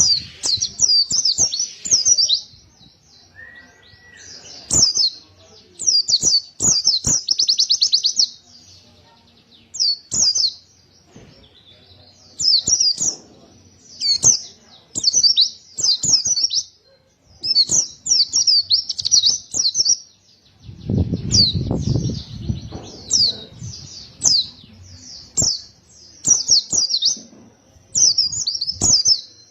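A white-eye (pleci) singing vigorously in repeated bursts of fast, high twittering phrases, each a second or two long with short pauses between, one of them a rapid trill. A low rumble comes in about two-thirds of the way through.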